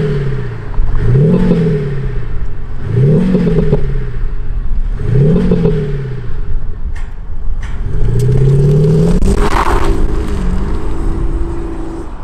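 Mercedes-Benz S350d diesel with a Cete Active Sound Unit, its sound generator playing a synthetic AMG-style V8 exhaust note in the brighter sound file, revved in about five blips that rise and fall. A few sharp cracks like simulated backfires come about two-thirds through, then the note holds steadier as the car pulls away near the end.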